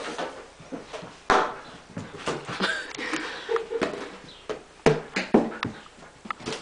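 Siberian husky playing with a balloon: a string of scuffs, taps and knocks, two of them sharp, just over a second in and about five seconds in, with short squeaky sounds between.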